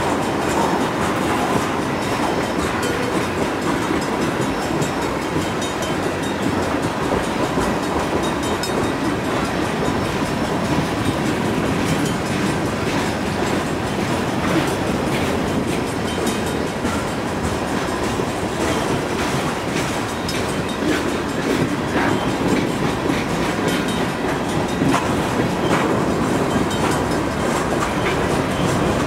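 Loaded freight cars (tank cars and covered hoppers) of a long freight train rolling steadily past, with wheels clacking over the rail joints and the crossing. Wind noise on the microphone runs over it.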